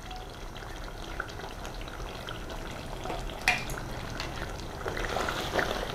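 Pot of chicken curry simmering on the stove with a steady faint crackle and sizzle. A single sharp tap comes about three and a half seconds in.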